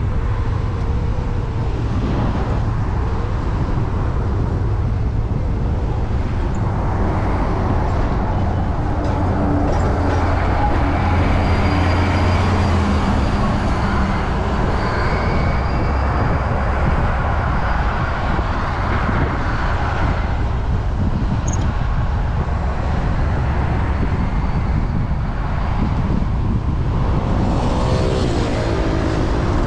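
Steady wind rush and road rumble on the action camera of a Ninebot Max electric scooter riding in city traffic, with motor-vehicle engines passing and following. A bus engine hums ahead around the middle, and another engine's pitch shifts up and down near the end.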